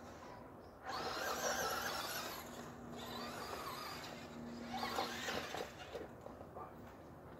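Traxxas Rustler VXL RC truck's brushless electric motor whining under throttle as the truck drives on grass. It comes up sharply about a second in and fades over the next two seconds, then there is a second short burst of throttle about five seconds in.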